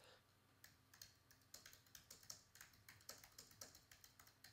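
Faint typing on a computer keyboard: a quick, irregular run of key clicks starting about half a second in.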